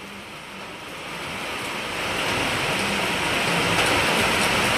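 Rain falling steadily on trees, a wordless rushing hiss that swells over the first two seconds and then holds steady.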